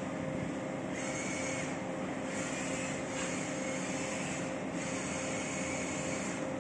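Steady mechanical hum with a constant low tone over a rushing background noise; a higher hiss comes and goes from about a second in.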